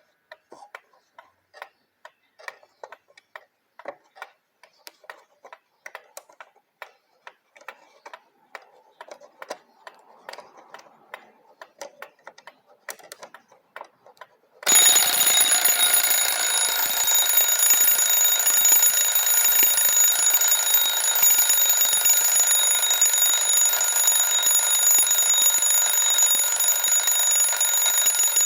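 Antique Gilbert alarm clock from about 1900 ticking quietly, then about halfway through its alarm goes off suddenly: the bell rings loud and continuously without letting up.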